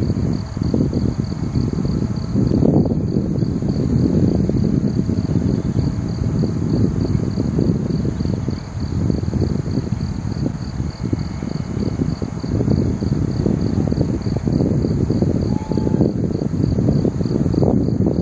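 Insects chirping in a steady high pulsing trill, several pulses a second, over a louder, steady low rumble of outdoor noise.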